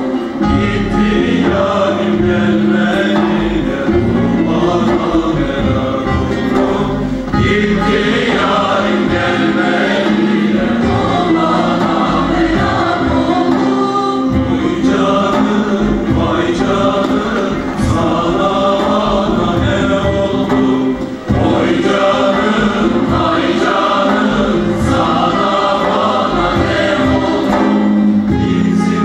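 Mixed choir of men and women singing a Turkish folk song (türkü) in a multi-part, polyphonic arrangement.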